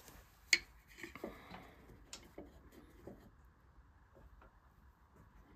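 Faint clicks and scrapes of a hand carving tool cutting into wood, with a sharp click about half a second in, then a few softer ticks over the next three seconds.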